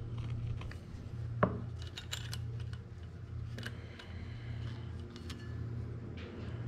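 Hand tools and small steel parts clinking and tapping during work on a tractor's front axle, with a sharp metal click about a second and a half in and several lighter ones after, over a low steady hum.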